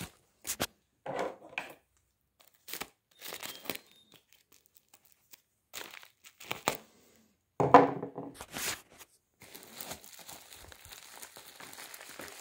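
Bubble wrap being handled and cut open with a folding knife: plastic crinkling and tearing in separate short bursts, the loudest a little past halfway.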